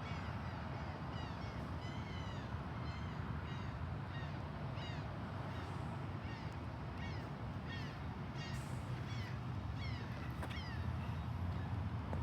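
Birds calling outdoors, with many short chirps repeating at irregular intervals over a steady low background rumble.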